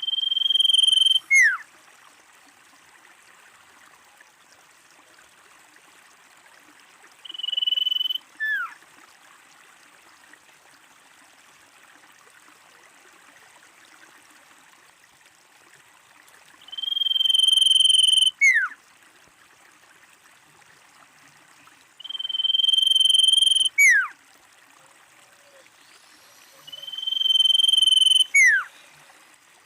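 Common iora calling: five long, level whistles spaced several seconds apart, each ending in a quick, sharp downward slur, over a faint steady hiss.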